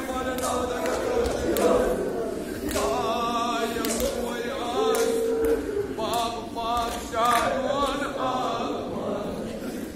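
Men's voices chanting a Kashmiri marsiya, a Shia mourning elegy, together as a group, with a long held note about halfway through.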